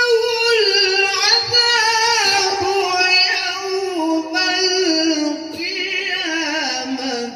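Man's voice in melodic Quran recitation (tilawah): one long, ornamented held phrase whose pitch steps slowly downward.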